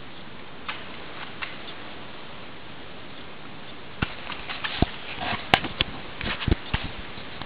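Footsteps of a person running over a forest floor of dry leaves and twigs, starting about four seconds in: irregular heavy thuds and crunches, with one sharp crack midway. Before that, a steady hiss with a few faint clicks.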